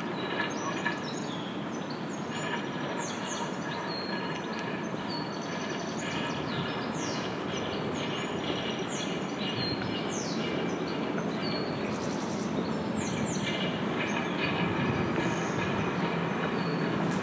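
Steady mechanical drone with several high held whining tones, and birds chirping repeatedly over it.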